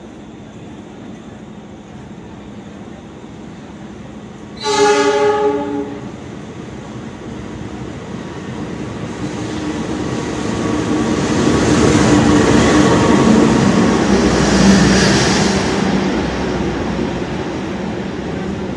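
CC 206 diesel-electric locomotive sounding one loud horn blast about five seconds in, then running through the station with its train without stopping. The engine and wheel noise grow louder as the locomotive comes past, then the passenger carriages roll by.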